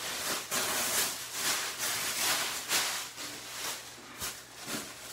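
Plastic bubble wrap and tissue paper crinkling and rustling as hands rummage through box packing. The crackle is densest over the first three seconds, then eases off.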